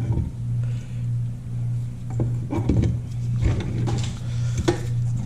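Scattered light metallic clicks and knocks as a frozen crankshaft is slid into the greased main bearing of a KTM 250 SX two-stroke engine case, over a steady low hum.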